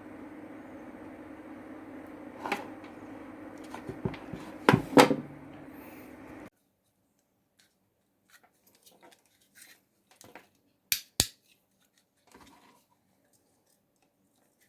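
Small electric motor humming steadily with a clear low tone, stopping suddenly about six and a half seconds in. A few loud clattering knocks come just before five seconds, then light scattered clicks and two sharp clicks near eleven seconds.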